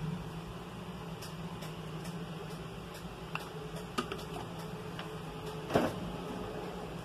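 Steady low hum, with a few light clicks and one louder knock near the end.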